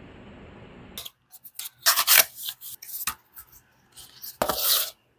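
A phone case and its packaging being handled and unboxed: irregular bursts of rubbing and rustling, the longest about two seconds in and again near the end.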